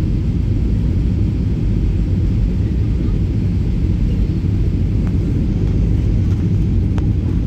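Jet airliner cabin noise on the landing approach: a steady low rumble of the engines and rushing air heard from inside the cabin.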